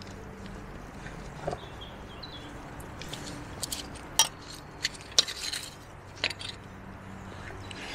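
Clinks and knocks of a camping spirit-stove set being handled: a metal pot stand set down over a brass spirit burner, with several sharp metallic taps in the middle of the stretch.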